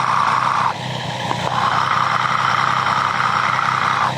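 Triumph 765 three-cylinder engine idling, heard through a mechanic's stethoscope held against the left cam-chain guide rail, checking for a chain noise. The engine note is steady, and its tone changes briefly about a second in.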